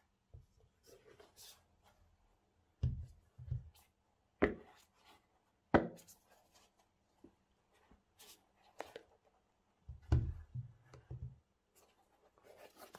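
Nike Air Max Tailwind V sneakers being handled and turned over in cotton-gloved hands: soft rubbing and rustling, broken by a few sharp knocks and dull thumps, the loudest a little after the middle and a cluster about ten seconds in.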